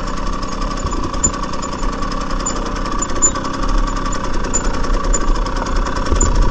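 Two-stroke dirt bike engine running steadily at low revs as the bike rolls down a steep dirt slope.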